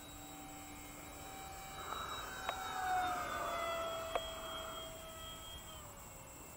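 Free Wing A-10 Warthog RC jet's twin electric ducted fans whining as it makes a pass, growing loudest about three seconds in, then dropping in pitch and fading as it flies away. Two short sharp clicks partway through.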